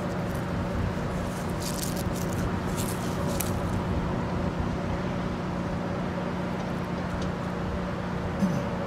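Steady hum of a standing Northstar commuter train, its diesel locomotive idling, with a few short hisses about two to three seconds in. A brief sharp sound comes near the end.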